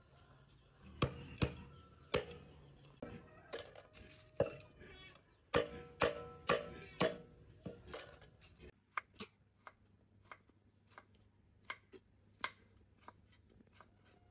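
Cleaver chopping on a wooden chopping board: irregular heavy chops as the tips of pond-snail shells are cut off, then, after about nine seconds, lighter and quicker chops through red chillies and lemongrass.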